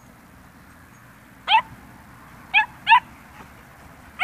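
A dog yipping in rough play: one short, high-pitched yip about a second and a half in, two more close together near three seconds, and another at the very end.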